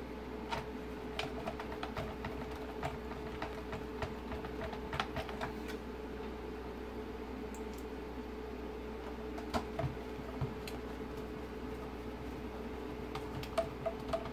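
Light clicks and ticks of a screwdriver turning T10 Torx screws into the plastic back housing of an Audi TT instrument cluster, a quick run of them over the first six seconds, a couple about ten seconds in and more near the end. A steady faint hum runs underneath.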